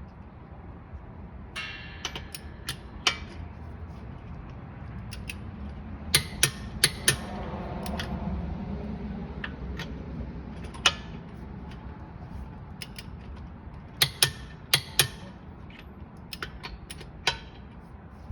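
Click-type torque wrench tightening wheel lug nuts to 110 foot-pounds. Sharp clicks come as each nut reaches torque, several in quick groups, with ratchet and mechanism noise between them.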